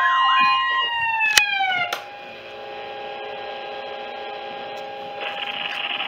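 Weather radio alert tones from several receivers: steady high beeping tones that slide down in pitch and cut off with a click about two seconds in, leaving a softer steady tone, with radio hiss coming in near the end.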